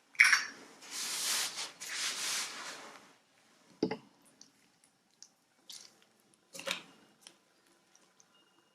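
Slime-making handling sounds: two hissing runs of liquid about a second long each, like a pour or squirt into a bowl, then a single knock and a few soft clicks and squishes.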